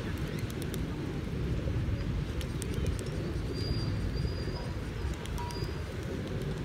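A flock of feral rock pigeons cooing in a low, continuous murmur, with scattered sharp clicks and a few short, high chirps midway.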